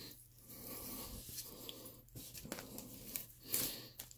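Quiet rustling and clicking of trading cards in plastic sleeves and a rigid plastic toploader as they are handled and shuffled through.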